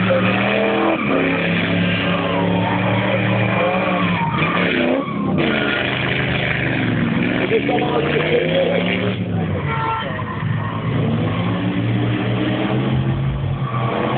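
Drift car engine revving hard, its pitch rising and falling repeatedly as the car slides sideways through a corner, with tyre skidding noise.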